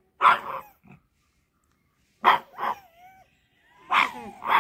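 Pug barking in short, loud barks, one or two at a time, with a brief whine about three seconds in and a quick run of barks near the end.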